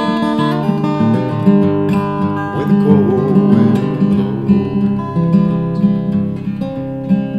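Steel-string acoustic guitar playing chords in a steady rhythm, an instrumental passage between sung lines of a folk song.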